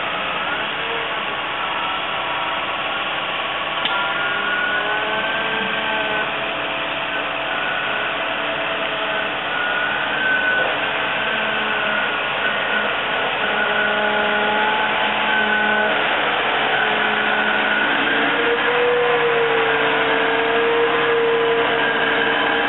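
Caterpillar 120M motor grader's diesel engine running under load as the machine drives and its blade spreads gravel; a steady machine drone with tones that drift slightly in pitch, getting a little louder in the second half.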